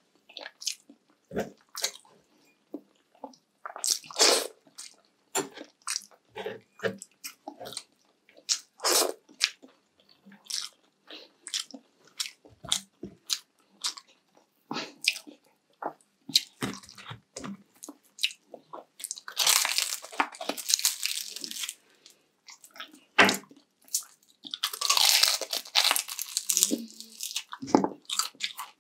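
Close-up eating sounds: a person bites and chews crisp food with sharp crunches and wet mouth noises. About twenty seconds in, and again about twenty-five seconds in, there is a longer stretch of continuous crunching and chewing.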